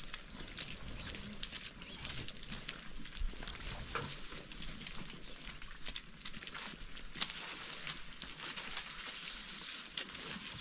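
Rain falling, a steady dense patter of drops on a surface.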